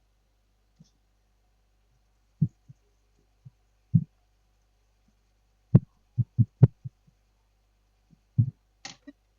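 Irregular soft, low knocks and taps of handling at a repair bench, clustered a little past halfway, with a brief higher scrape near the end.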